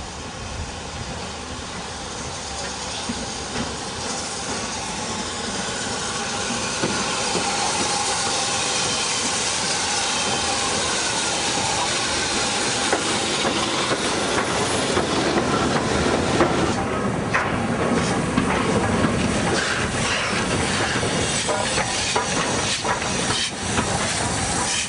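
Steam train growing louder over the first several seconds as it approaches, then running close by with steady steam hiss and wheels clicking over the rail joints.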